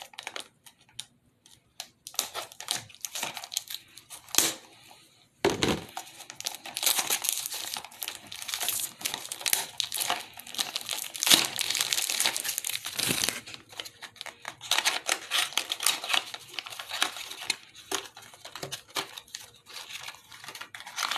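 A pink toy packaging wrapper crinkling and tearing as it is pulled open by hand, in long crackly stretches with short pauses. A dull knock comes about five and a half seconds in.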